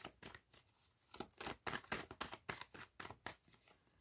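Tarot cards being shuffled by hand: a quick, irregular run of soft card-on-card taps and rustles.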